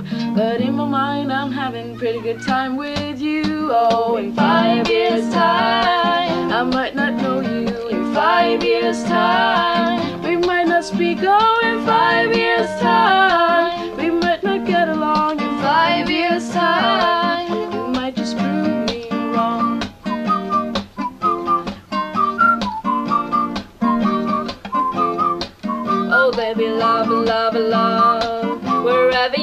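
Background song: plucked acoustic guitar with a singing voice.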